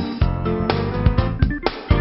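Background music with plucked guitar and sharp regular beats.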